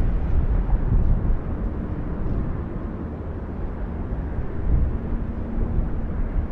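Eruption of the Cumbre Vieja volcano on La Palma: a continuous deep rumble that swells and eases unevenly.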